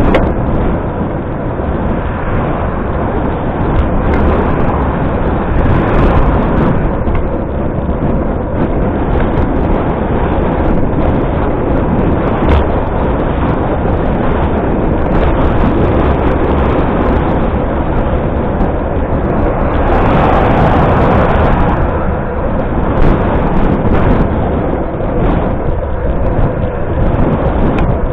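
Wind buffeting the microphone of a moving action camera, with steady road and traffic noise as cars pass close by. One vehicle passes louder about twenty seconds in.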